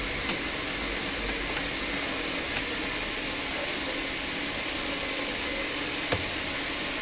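Steady hiss with a few short clicks as a hand-turned socket driver loosens a bolt on the roof-mounted AC housing; the sharpest click comes about six seconds in.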